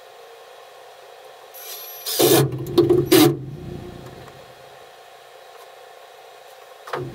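Cordless drill running briefly, driving a screw into a wooden 2x2 brace: about two seconds in, a second or so of motor hum with gritty bursts as the screw bites. It starts up again right at the end.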